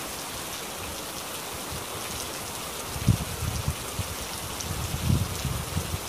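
Steady rain falling, an even hiss with scattered faint drop ticks. Short clusters of low, muffled bumps come about three seconds in and again about five seconds in.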